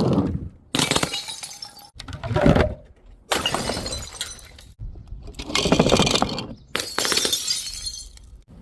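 Glass bottles smashing one after another, each crash followed by the tinkle of breaking shards, in about six short takes that each end abruptly.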